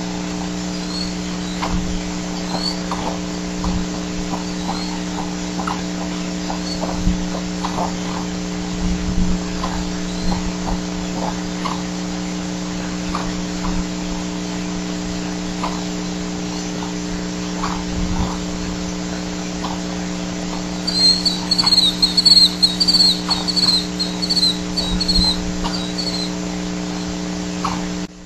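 Nest-camera microphone audio at a bald eagle nest at night: a steady hum with scattered soft clicks and ticks. About three-quarters of the way through comes a loud run of rapid, high chittering calls lasting about five seconds.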